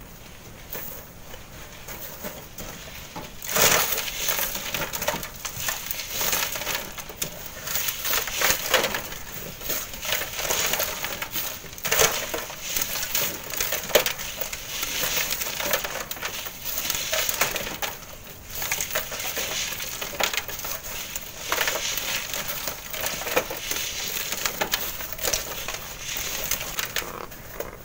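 Sand and stones being scraped, shovelled and tipped into metal wheelbarrows by hand: an irregular run of gritty scrapes and clatters as sieved sand is loaded and leftover stones are cleared aside.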